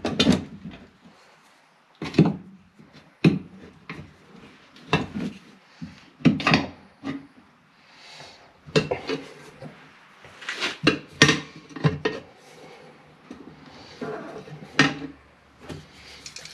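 Irregular metallic clicks and clinks of hand tools and small steel parts being handled while a small retaining clip is worked into place with locking pliers.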